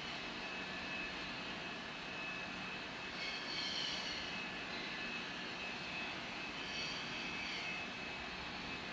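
Steady background drone of room noise, with two faint, brief higher sounds about three and seven seconds in.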